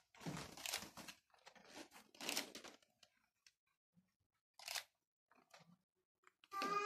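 Soft rustling and handling noises in four short bursts, about a second apart at first and then once more near five seconds in. A voice starts right at the end.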